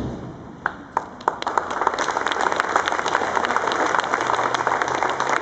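Crowd applauding: a few scattered claps at first, then many hands joining in about a second and a half in and clapping steadily.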